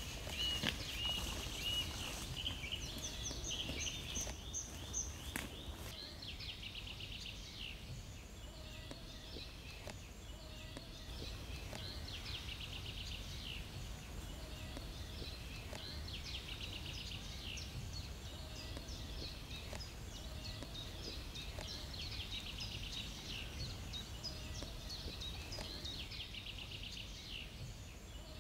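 Woodland birds singing: a trilled song phrase repeats every four or five seconds, with whistled notes in the first few seconds and a short low call recurring in the background, over a steady low rumble.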